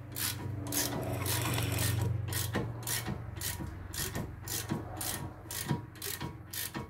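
Socket ratchet turning out a caliper bracket bolt on a brake caliper bracket, its pawl rasping in short back-and-forth strokes about two to three times a second.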